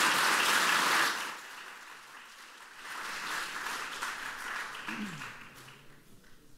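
Audience applauding, loud for about the first second, then dropping off, swelling again briefly in a smaller second wave and dying away near the end.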